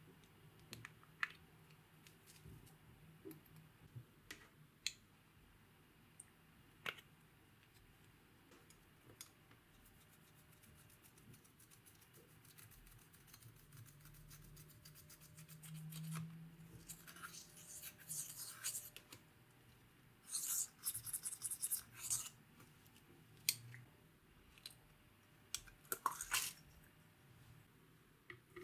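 Small plastic cosmetic and glitter containers clicking and tapping as they are opened and handled, then dry, rapid scratching in a few bursts of a second or two in the second half, as a brush scrapes pressed eyeshadow out of its compact.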